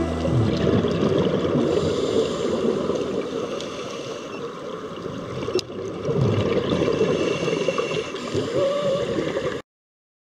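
Sea water rushing and churning, heard through an underwater camera housing, until it cuts off suddenly near the end.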